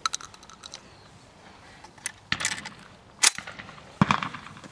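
Shotgun shots on a clay shooting ground: several sharp bangs, the two loudest about three and four seconds in, the last with a short ringing tail. Smaller clicks and cracks come between them.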